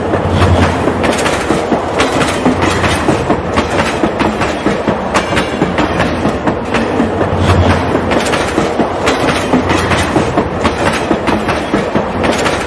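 A train of wagons crossing a rail bridge, its wheels clattering in a steady, repeating rhythm over a continuous rumble.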